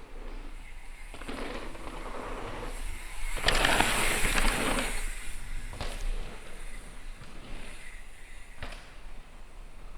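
Downhill mountain bike being ridden on a trail: tyre and wind noise, with a sharp knock about three and a half seconds in, followed by a louder rush lasting over a second, then a few fainter knocks.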